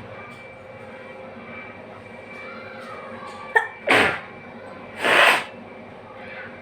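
A woman sneezing twice in quick succession, about a second apart, the second sneeze the longer of the two.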